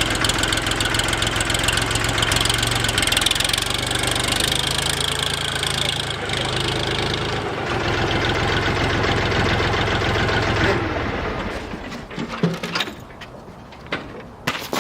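Foton 28 hp compact tractor's diesel engine running steadily, its speed shifting slightly partway through, then shut off about eleven seconds in. A few separate knocks follow near the end.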